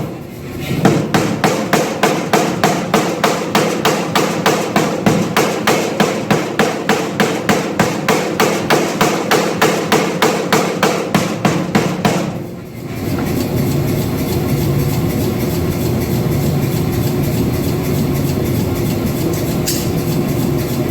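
Power hammer striking hot steel bar at a steady rate of about four blows a second for some twelve seconds, then the blows stop and a steady running hum is left.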